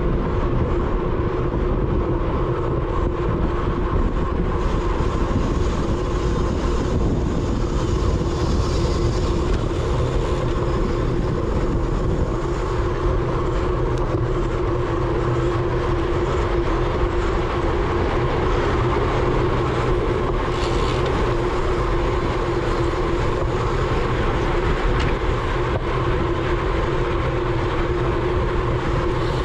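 Steady wind rush on the microphone and road rumble from a road bike racing at speed in a criterium, with a constant hum running through it.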